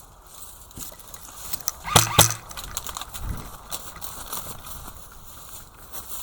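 Scattered clicks and knocks over a quiet background, with two louder sharp cracks close together about two seconds in.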